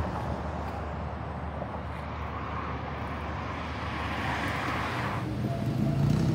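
Road traffic passing: a steady wash of car tyre and engine noise, with one vehicle swelling louder from about two to five seconds in. It cuts off abruptly near the end and gives way to a lower, steady rumble.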